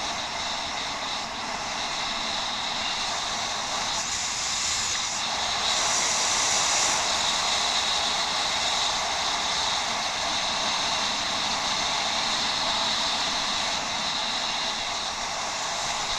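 Steady rushing noise of a bicycle being ridden off-road: wind and tyre noise picked up by a head-mounted action camera, swelling slightly about halfway through.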